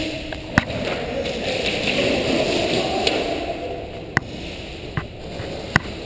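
Airsoft guns firing single shots: a sharp crack about half a second in and three more in the last two seconds, over a steady rustling noise that is louder in the first half.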